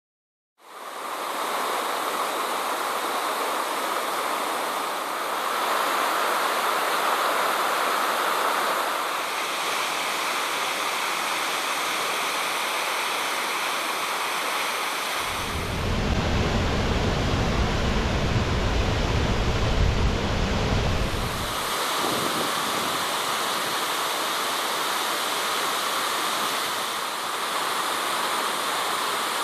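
Waterfall's steady rush of falling water, its tone shifting every few seconds. For about six seconds in the middle a deep low rumble joins in and the highest hiss drops away.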